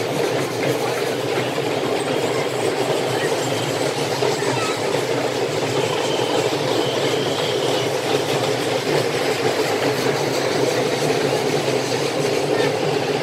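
Steady murmur of a large crowd talking and walking, many voices blended into one even din.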